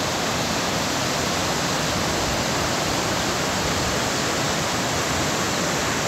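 Steady rush of a waterfall, water cascading over rock slabs into pools.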